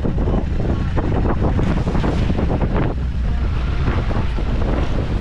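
Wind buffeting the microphone on a wooden passenger boat under way, with the rush and splash of choppy water along the hull over a steady low rumble from the boat's running.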